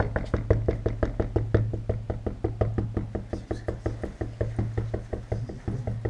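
Rapid knocking on a white door with the fingers, about seven or eight even taps a second without a break, over a low steady hum.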